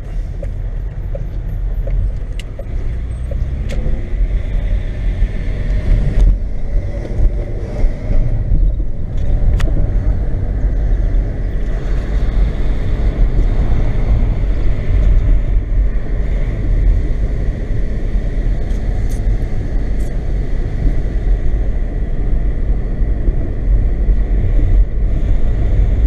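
A car driving, its engine and tyre noise heard from inside the cabin as a steady low rumble that grows louder over the first few seconds.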